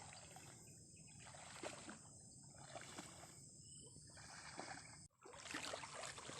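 Faint water sloshing in slow, even strokes about every second and a half, over a steady high hiss. The sound drops out abruptly about five seconds in and returns louder.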